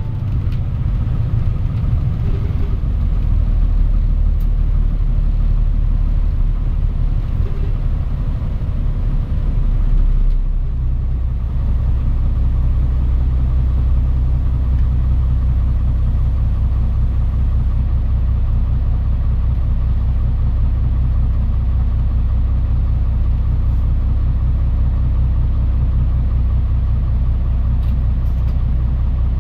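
Engine of a Mitsubishi Fuso Aerostar KC-MP717 city bus running, heard from inside the passenger cabin as a steady low rumble. About ten seconds in, the engine note changes, then holds even.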